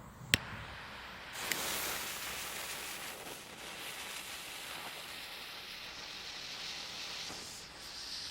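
A single sharp click, then a steady hiss starting about a second in, as a firework rocket's fuse burns down before launch.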